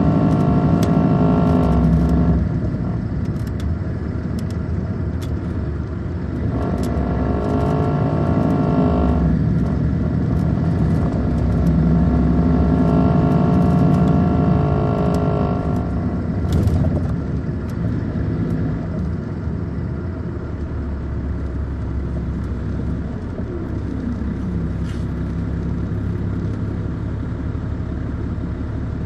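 Caterpillar C13 diesel engine of an MCI D4500CL coach bus running under load. Its note builds in stretches and drops away sharply about two seconds in and again about sixteen seconds in, then it runs quieter and steadier.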